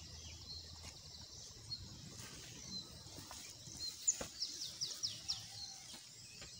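Rural outdoor ambience with small birds chirping: short high chirps and quick falling calls, coming thicker in the second half over a faint steady hiss. A single sharp tap about four seconds in.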